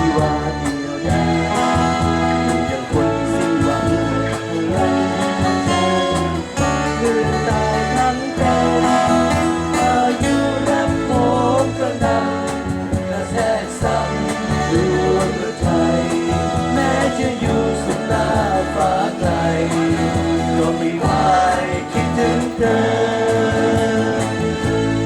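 A band playing a Thai pop song live, a lead singer over guitar and backing instruments.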